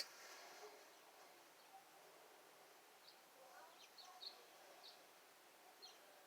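Near silence: faint background hiss with a few faint, short, high chirps in the middle, and a single click right at the start.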